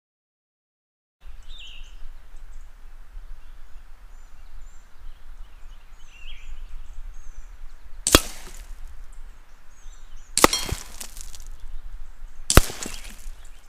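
Three shots from a .30 caliber AEA SF PCP air rifle at an ice block, each a sharp crack, a little over two seconds apart. The second and third have a short rattling tail after the crack.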